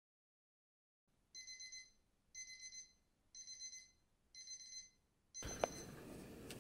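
Electronic alarm beeping: about once a second, a quick run of four high beeps, five runs in all, the last cut short as room noise and a click come in near the end. A wake-up alarm going off.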